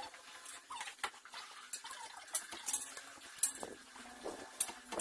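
Scattered sharp clicks and light rattles of small plastic Tamiya Mini 4WD parts and a screwdriver being handled during assembly, about five clicks over the few seconds.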